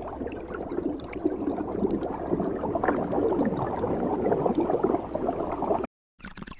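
Water bubbling continuously with dense small pops and gurgles. It cuts out abruptly near the end for a moment, then resumes more quietly.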